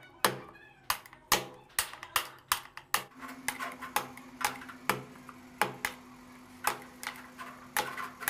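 Hammer tapping the handle of a screwdriver, chiselling the collar off a PVC SWR pipe socket: sharp knocks about two to three a second, evenly paced.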